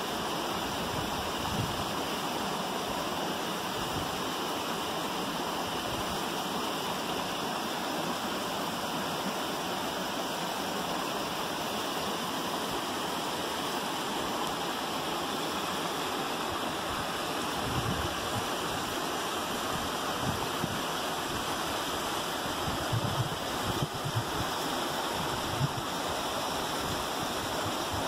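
Steady rush of creek water spilling over boulders at a small waterfall, with a few brief low bumps in the second half.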